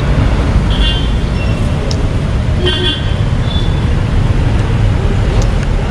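Steady low road-traffic rumble with a few short, high vehicle-horn toots, about one second and again about three seconds in.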